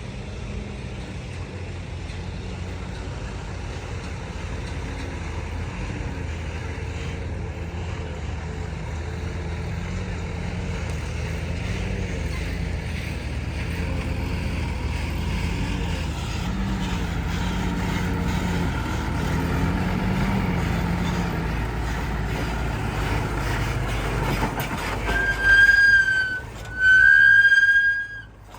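Dump truck's diesel engine running under load, its pitch rising and falling as it grows gradually louder. Near the end, two loud blasts of a horn, the second longer.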